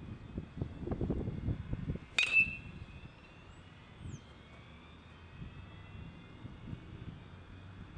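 A baseball bat striking a pitched ball about two seconds in: one sharp crack that rings briefly, over gusts of wind on the microphone.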